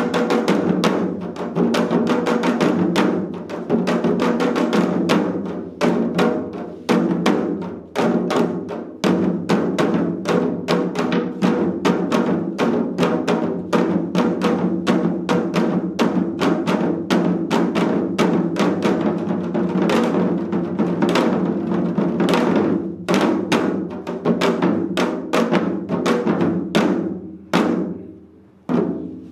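Janggu (Korean hourglass drums) played together by several seated drummers in seoljanggu style: a dense, fast run of stick and mallet strokes on both drumheads, with the drum bodies ringing. The strokes thin out near the end, then pick up again.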